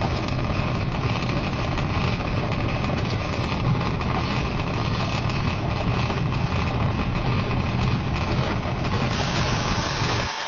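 A workshop power tool running steadily: a low motor hum under a constant hiss, as in cutting or grinding steel. The low hum cuts off suddenly near the end.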